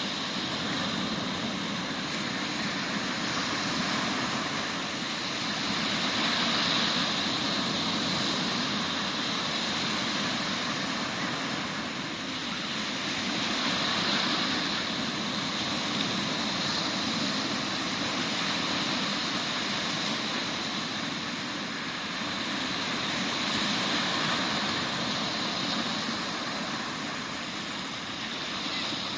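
Sea surf after a storm, waves breaking and washing on the shore in a continuous rush that swells and eases every several seconds.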